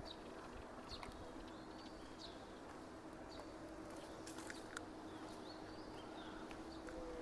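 Small birds chirping in the street trees, short high calls repeating about once a second, over a faint steady hum of street ambience.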